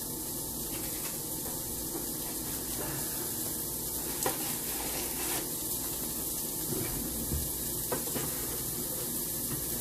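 Hot dog pieces frying in butter in a pan: a steady sizzle, with a few light clicks through it.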